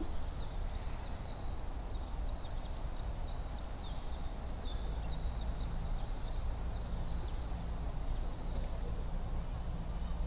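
A small bird singing a run of short, quick, falling high notes, which fade out about seven seconds in, over a steady low rumble.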